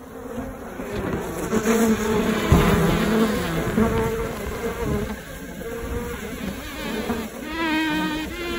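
Honey bee colony buzzing inside a wooden Japanese-style box hive, with single bees droning close past the microphone. A low bump about two and a half seconds in; near the end one bee holds a loud, steady buzz right at the microphone.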